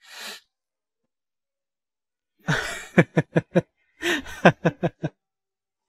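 A person laughing in two short bursts. Each starts with a breathy rush and then breaks into quick "ha" pulses that fall in pitch. A brief breath comes right at the start.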